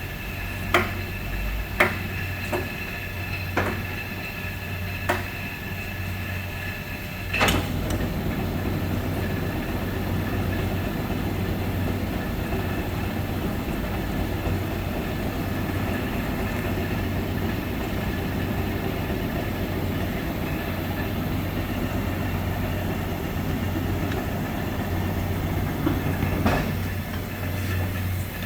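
1957 Monarch Model 32 NN engine lathe running under power with a steady hum, a few sharp clicks and clunks in the first five seconds. About seven seconds in there is a loud clunk, after which the running noise is louder and busier.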